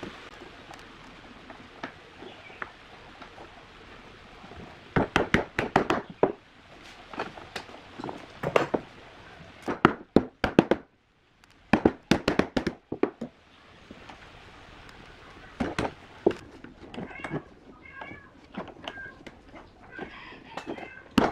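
Wooden mallet knocking a bundle of thin laminated wood strips down into a curved bending form, in bursts of several quick blows with pauses between.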